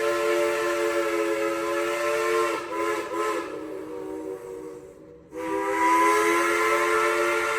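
Steam locomotive's chime whistle blowing a long blast of several notes at once. Its pitch wavers briefly about two and a half seconds in, it fades away for about two seconds, then sounds again suddenly.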